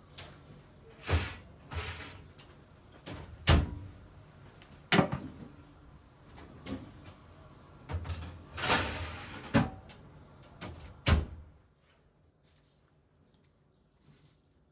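A series of about ten knocks and clunks of household things being handled and set down, with a short scrape near the middle, stopping about eleven seconds in.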